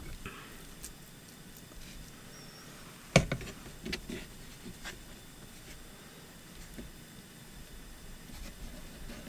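A sharp knock of cookware on the wooden kitchen board about three seconds in, then a few lighter taps and soft handling as flatbread dough is folded by hand around mashed potato. Otherwise quiet.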